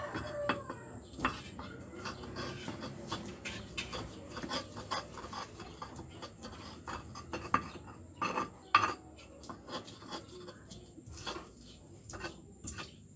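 Pestle grinding shallots and garlic into a paste in a cobek mortar: irregular scraping, tapping and knocking of pestle against mortar, with a few louder knocks about seven and a half and nine seconds in.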